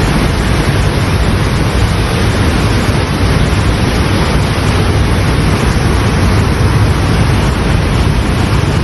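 Floodwater rushing in an overflowing stream: a loud, steady, even roar with no pauses.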